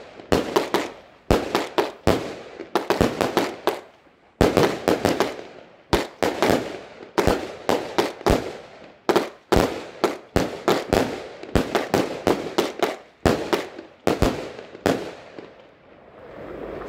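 Small multi-shot firework cakes firing, a sharp bang about twice a second, each with an echoing tail. The shots stop about fifteen seconds in.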